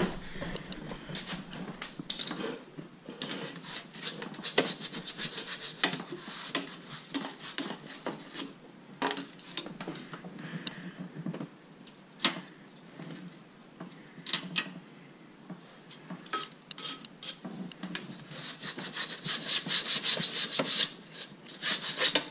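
Repeated scratchy rubbing and scraping strokes as caked dirt, dust and leaf debris are scrubbed out from around a car's radiator. The strokes come faster and louder near the end.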